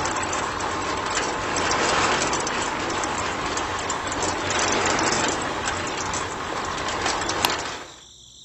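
A small machine running with a steady clattering rattle of many fast clicks, fading out near the end.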